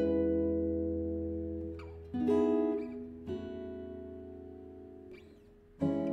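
Acoustic guitar playing slow strummed chords, four in all, each left to ring out and fade before the next, with a faint gliding squeak before some chord changes.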